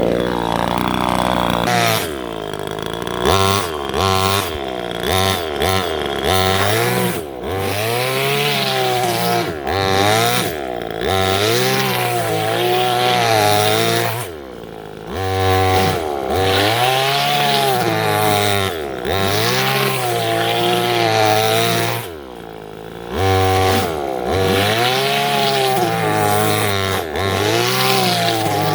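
25cc two-stroke chainsaw engine driving an RC truck, revving up and down over and over as the throttle is worked. It drops back to a quieter low speed briefly twice, about halfway through and about three quarters of the way through.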